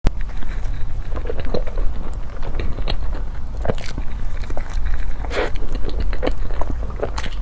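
A person biting and chewing food, with irregular soft crunches and mouth clicks over a steady low hum.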